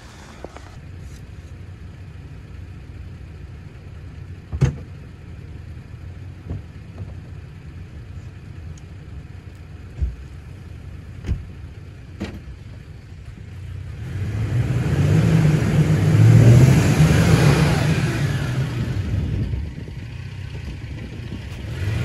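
Toyota Tacoma pickup idling while stuck on an icy patch in deep snow in four-low with the rear locker on, with a few light knocks. About two-thirds through, the engine revs and the tyres spin and churn snow for about five seconds, then the engine drops back.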